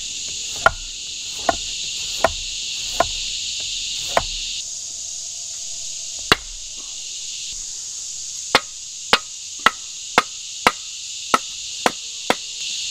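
Wooden baton striking the spine of a large knife driven into the end of a pole to split it: sharp wooden knocks, lighter and slower in the first few seconds, then a quick run of about two strikes a second in the second half. A steady high insect drone runs underneath.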